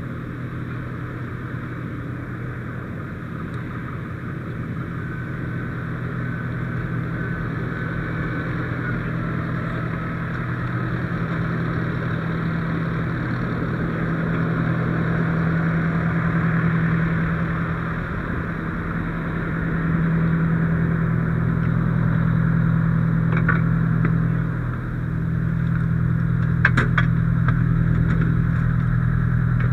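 Diesel engine of a 1992 Saulsbury Simon/Duplex fire engine running, heard from inside its cab. It grows gradually louder, dips briefly twice in the last third, and a few sharp clicks come near the end.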